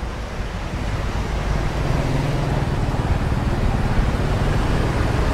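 Road traffic: a motor vehicle's engine running close by with a steady low drone, growing slightly louder as it goes.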